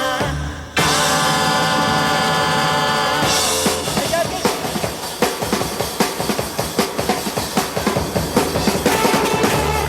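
Live rock band music: a sustained held chord, cut by a short break just before the first second, then a drum kit comes in about three and a half seconds in with a fast, steady beat.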